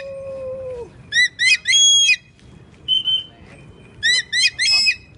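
White-bellied sea eagle calling: loud, rapid series of repeated sharp notes in three bursts, the last about four seconds in. In the first second a steady lower held tone, a whistle or drawn-out call, sounds under them.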